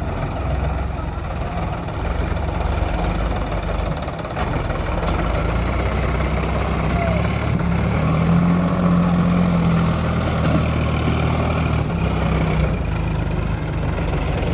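Heavy diesel engine of a backhoe loader or tractor running steadily near idle, growing slightly louder for a couple of seconds in the middle.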